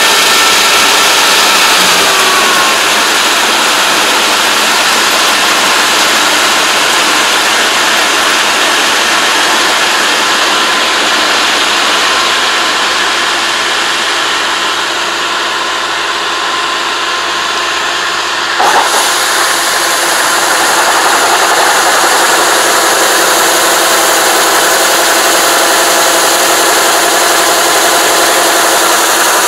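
Kubota ARN460 combine harvester's diesel engine running steadily, with its unloading auger discharging harvested rice grain into a wooden box. A brief knock comes about two-thirds of the way through.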